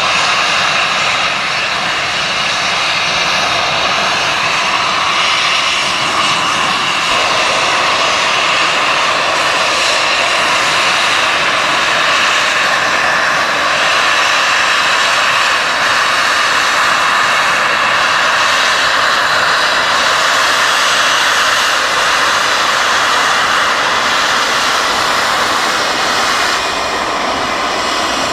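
LNER Gresley A4 Pacific steam locomotive 60019 Bittern moving slowly, with a loud steady roar of escaping steam: the safety valves are blowing off and the cylinder drain cocks are open.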